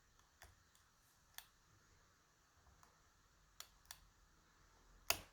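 Faint, scattered clicks of a lock pick and tension tool working the pins of a DOM RS Sigma cylinder lock in a false set: about five separate clicks, the loudest near the end.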